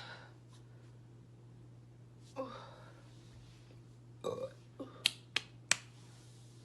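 A young woman burping: a short burp about two seconds in and another a couple of seconds later. These are followed by three sharp clicks in quick succession, which are the loudest sounds here.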